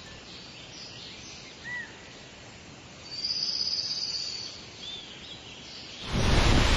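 Forest ambience with a few short bird chirps and a high, steady trill lasting just over a second midway. About six seconds in, a loud, steady rush of falling water from a waterfall sets in.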